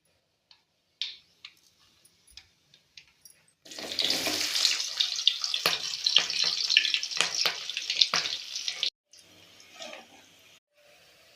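Water running from a kitchen tap into a sink for about five seconds, with splashes and knocks in the stream, cutting off suddenly. A few light clicks and taps come before it.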